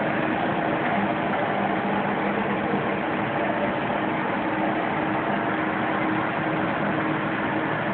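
Two-layer blown film extrusion line running: a steady machine drone with a low hum, unchanging throughout.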